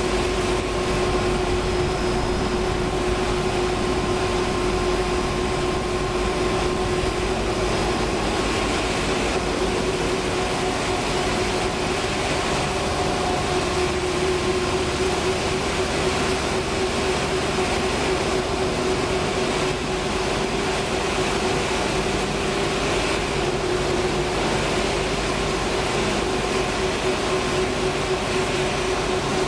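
Dog food production line running: a steady machinery noise with a constant hum.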